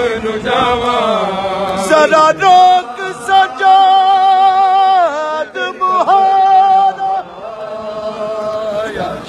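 A man singing a Punjabi noha (Shia mourning lament), holding long, slightly wavering notes with short breaks between phrases.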